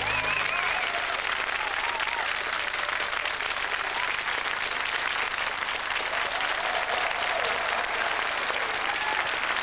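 Studio audience applauding steadily; the backing music cuts off at the very start.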